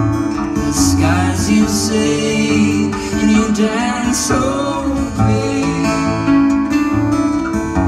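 Live acoustic song: two acoustic guitars playing together, with a singing voice over them about one and four seconds in, heard from the audience.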